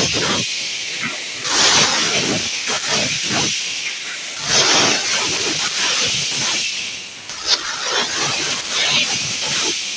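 Pneumatic filling machine letting off compressed air: bursts of air hiss about every three seconds as its AirTAC solenoid valves switch and the air cylinders cycle, over a steady mechanical clatter.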